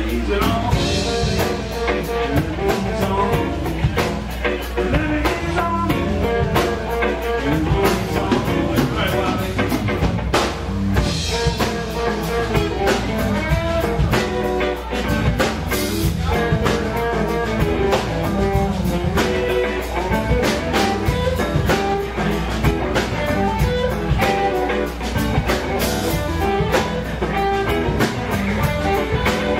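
Live blues band playing: an electric guitar carries the lead over drum kit and bass, with a steady beat and no break.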